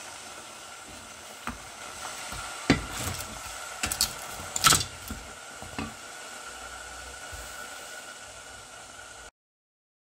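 Wooden spoon stirring a stainless steel pot of whipping cream with melting caramel, knocking sharply against the pot a handful of times, over a steady hiss. The sound cuts off shortly before the end.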